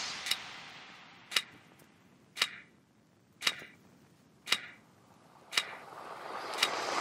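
Ticking like a clock, about one sharp tick a second, seven in all, as the background music fades out and then swells back in near the end.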